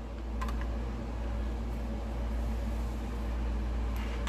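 Steady low hum of a fan- or air-conditioner-like room background, with a couple of faint clicks about half a second in.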